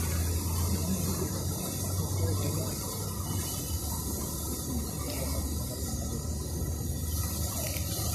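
Steady rushing hiss of a park fountain's water jet splashing into its pond, with a low rumble underneath.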